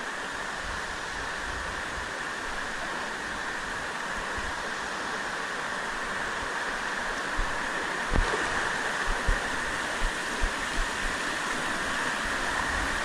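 Waterfall water rushing steadily, growing slightly louder, with several short dull low thumps in the second half.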